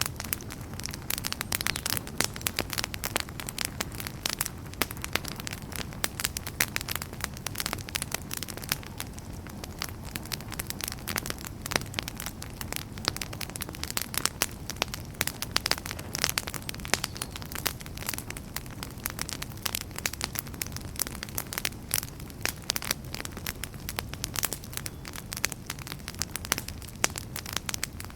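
Wood campfire crackling and popping continuously, with many sharp irregular snaps over a low, steady burning rumble.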